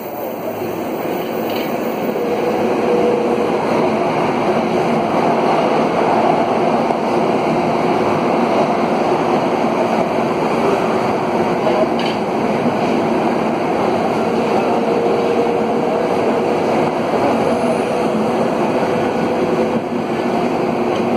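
Running noise of an Alstom AS 02 steel-wheeled metro train heard from inside the car: a steady rumble of steel wheels on rail, growing louder over the first few seconds, with a faint steady tone coming and going.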